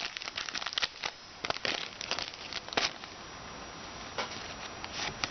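Foil trading-card pack wrapper crinkling and cards rustling as they are handled. Dense crackling for about the first three seconds, then quieter handling with a few light clicks.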